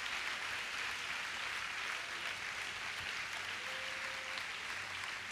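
Congregation clapping their hands in steady, even applause.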